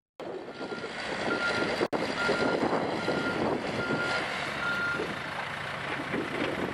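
Reversing alarm on a Scania P380 8x4 tipper truck, giving six single-tone beeps about every 0.8 seconds that stop about five seconds in, over the truck's diesel engine running.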